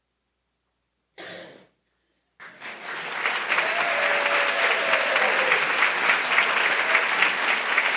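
Audience applauding, starting about two and a half seconds in and quickly building to steady clapping. A brief short noise comes about a second in, before the applause.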